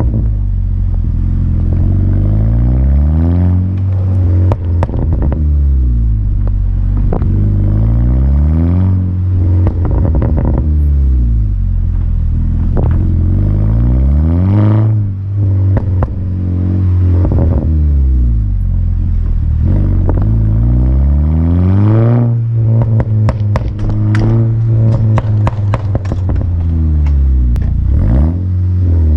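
VW Golf GTI Mk6's 2.0-litre turbo four-cylinder breathing through an Akrapovic exhaust, revving up and dropping back again and again. Each time the revs fall there are crackles and pops on the overrun from its Integrated Engineering pops-and-bangs tune, with a dense run of pops near the end.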